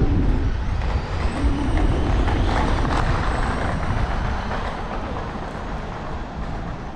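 Wind rumble on a bicycle-mounted camera's microphone while riding, with road noise, swelling into a louder hiss for a couple of seconds about two seconds in.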